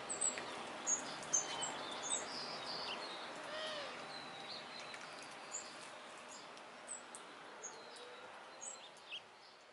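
Small songbirds chirping: scattered short, high calls over a steady outdoor background hiss, growing gradually quieter.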